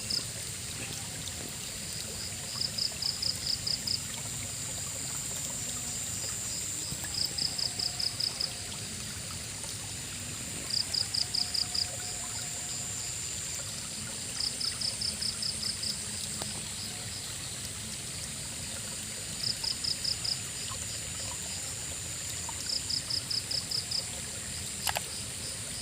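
River water flowing steadily, with a high steady drone of insects above it. Over this, a short trill of rapid high pulses, roughly seven or eight notes in about a second, repeats every three to five seconds and stands out as the loudest sound.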